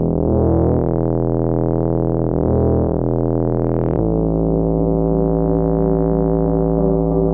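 Music: sustained, mellow synthesizer chords, moving to a new chord about four seconds in.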